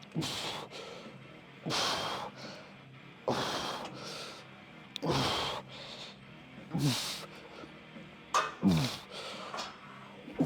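A person breathing hard in a steady rhythm: a sharp, forceful exhale about every second and a half, several with a low falling groan, the breathing of effort through repeated exercise movements.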